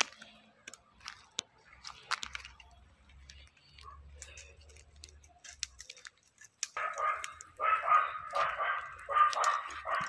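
An animal's loud, harsh calls, repeated in quick irregular bursts, starting about seven seconds in and going on from there; before that, only faint rustling and a few light clicks.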